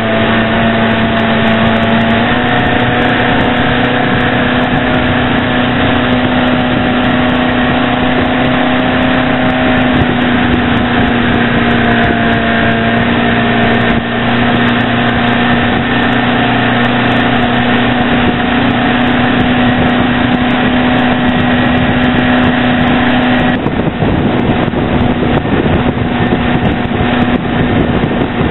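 Motorboat engine running steadily at towing speed, with its pitch shifting slightly a few times and the sound thinning out near the end.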